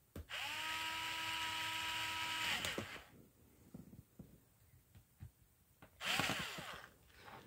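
Small electric screwdriver whirring for about two seconds as it drives a tiny screw into a laptop screen mount, its pitch rising as it starts and dropping as it stops. A shorter burst of sound follows near the end.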